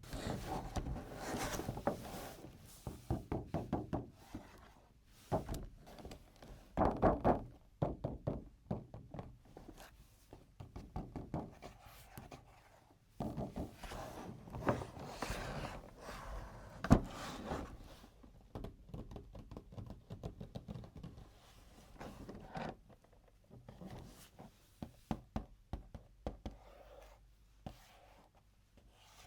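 Hands unboxing and handling plastic toys and packaging: rustling, with irregular knocks, taps and quick runs of clicks as pieces are handled and set down.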